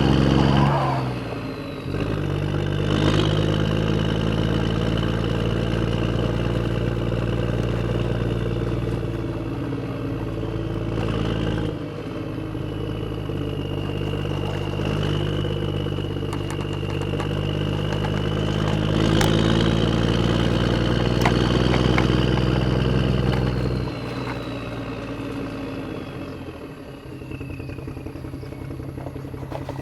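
Vehicle engine running steadily, with a high whine that slowly rises and falls. The engine sound drops off about three-quarters of the way through.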